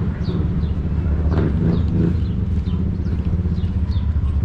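City street sound: a steady low rumble of road traffic, with short high chirps scattered through it.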